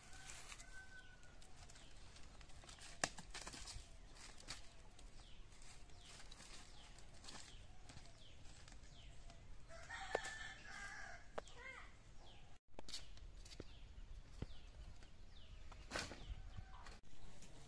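Rooster crowing once, about ten seconds in, over the faint rustle and scattered sharp snaps of dry sticks being gathered and handled; the loudest snaps come about three and ten seconds in.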